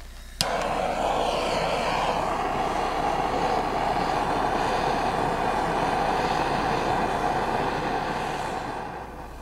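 Handheld gas torch lit with a sharp click about half a second in, then burning with a steady hiss as its flame is held on firewood to start a campfire, fading out near the end as it is shut off.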